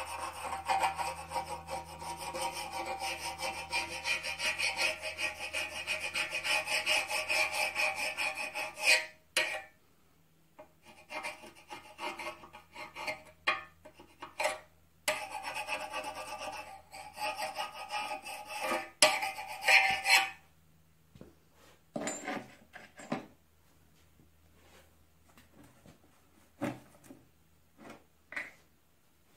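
A flat steel hand tool is rubbed in quick back-and-forth strokes over the cast-iron block of a McCormick Deering type M engine, filing and scraping the metal. It runs steadily for about nine seconds, stops, then comes back in shorter spells. It ends a little after twenty seconds, leaving a few light knocks and handling clicks.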